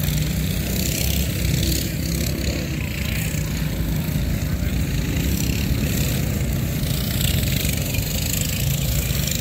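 Small single-cylinder engines of stock minibikes running steadily as the bikes race around a dirt track, heard as a low, continuous hum.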